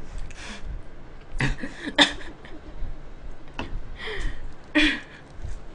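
A woman giggling softly in short breathy bursts, with a few small clicks between them. The louder giggle comes near the end.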